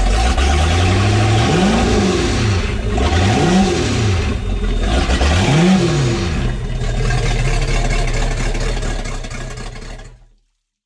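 Boat's outboard engine, freed after being seized, running and revved up and back down three times, each rev a rise and fall in pitch. The sound cuts off suddenly near the end.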